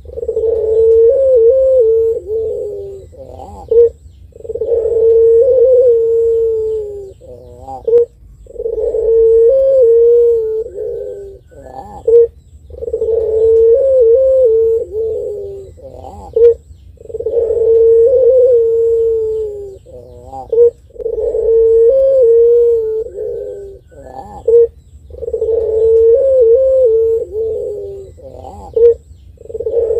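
Puter pelung, a domestic Barbary dove kept for its long coo, cooing over and over: each call starts with a short sharp note and runs into a long wavering coo of about three seconds, repeating roughly every four seconds.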